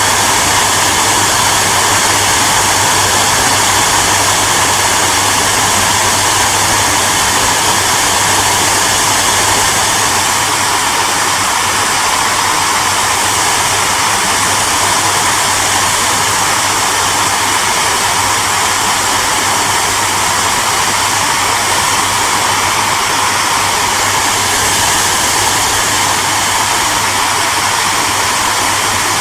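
Hair dryer running continuously: a steady, even whoosh of blowing air over a constant motor hum, with no change in speed.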